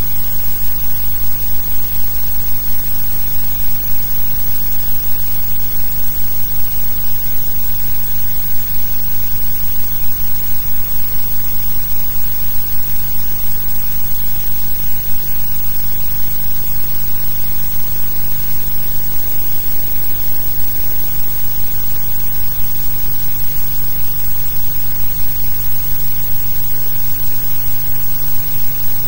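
Steady hiss with a low hum and no other events: the noise of a blank soundtrack on a silent film transfer.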